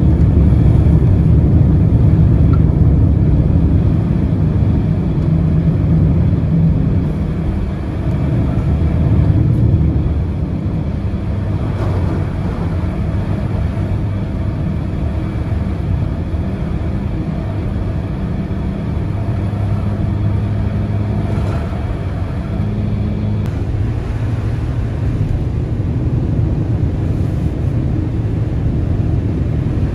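Steady low rumble of engine and tyre noise heard from inside a moving road vehicle on the highway, a little quieter from about ten seconds in.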